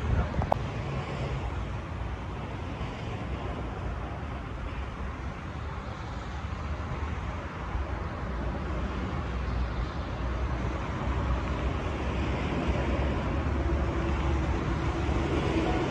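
Diesel passenger railcar running near the platform: a low steady engine rumble that grows louder in the second half, with a faint steady tone joining near the end.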